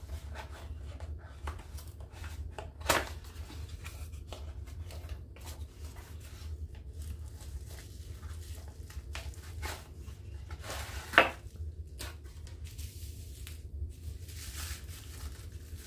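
Small cardboard gift box being opened and a jewelry tray slid out and unwrapped from clear plastic. Scattered rustles, scrapes and crinkles of card and plastic, with a sharper knock about three seconds in and the loudest snap about eleven seconds in, over a steady low hum.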